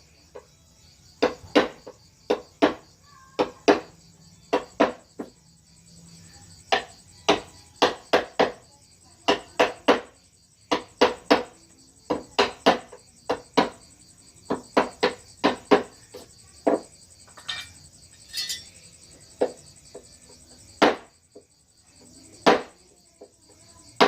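Wooden mallet tapping a carving chisel into wood: sharp knocks, often two or three in quick succession, about one group a second. A steady high drone of crickets runs underneath.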